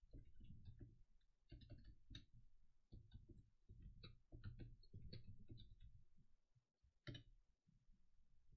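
Faint computer-keyboard typing in quick runs of keystrokes, then a single sharper click about seven seconds in.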